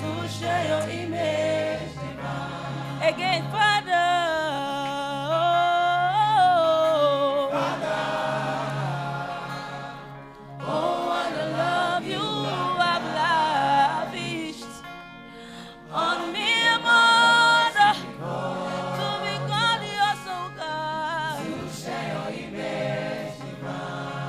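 A group of voices singing a slow gospel worship song together, with long held notes that rise and fall. The singing dips in level briefly about ten and fifteen seconds in.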